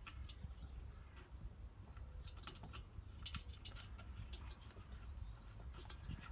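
Faint scattered clicks and taps as the diesel heater's plastic casing and parts are handled and refitted, over a low steady hum.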